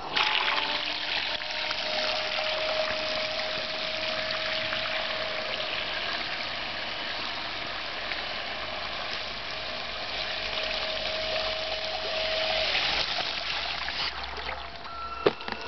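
A homemade radio-controlled bait boat running at speed across the water: a steady motor whine over a hiss of rushing water. The whine stops about 13 seconds in, and a sharp click comes near the end.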